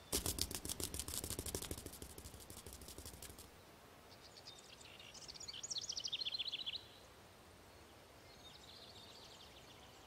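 A fast run of sharp clicks for about three seconds, fading as it goes, then a small bird chirping a quick trill that falls in pitch. A few fainter chirps come near the end.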